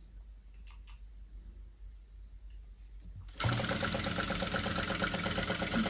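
Jack F5 industrial sewing machine with a direct-drive motor, starting about three and a half seconds in and running steadily at speed, stitching a test seam on sample cloth. Before that there are only a few faint clicks.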